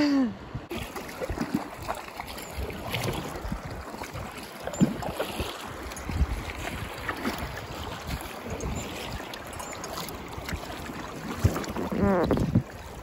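Paddle strokes splashing and dripping as a double packraft is paddled across open water, with water slapping the hull and wind on the microphone. A short voice sound breaks in right at the start and again briefly near the end.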